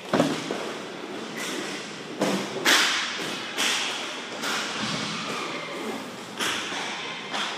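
Inline roller hockey play around the goal: a sharp thud right at the start, then a string of shorter clacks and scrapes of sticks, puck and skate wheels on the plastic rink floor, about one every second or so.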